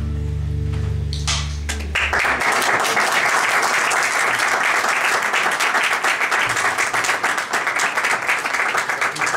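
A held chord from an electric guitar and a nylon-string classical guitar rings and fades out. About two seconds in, an audience breaks into steady applause that goes on to the end.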